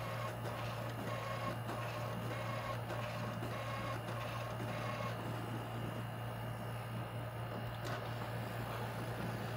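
HP ThinkJet inkjet printer printing a graph: the print-head carriage sweeps back and forth with a repeating pitched whine, about two passes a second, and stops about five seconds in. A steady low hum runs underneath.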